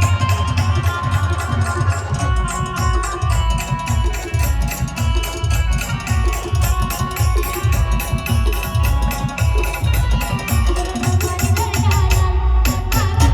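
A live band plays a Marathi folk song: fast, dense drumming under a steady melody line.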